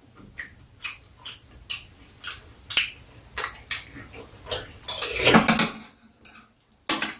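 Metal spoons and chopsticks clicking and tapping against ceramic bowls during a meal of soft tofu stew, a scattered string of short, sharp clinks. There is a longer, louder spell of eating noise about five seconds in.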